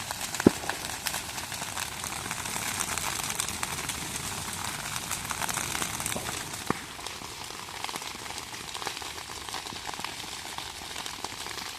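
Cut vegetation burning in a slash-and-burn (jhum) field: a dense, steady crackling of fire, with a sharp pop about half a second in and another a little before seven seconds.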